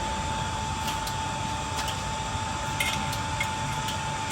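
Steady mechanical hum with a constant high whine running through it, and a few faint light clicks.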